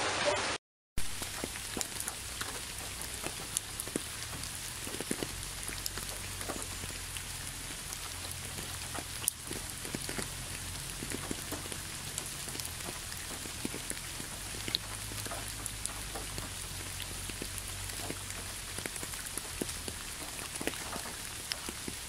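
Steady rain with many individual drops ticking close by, over a low rumble of wind. The sound cuts out for a moment just under a second in, then the rain resumes.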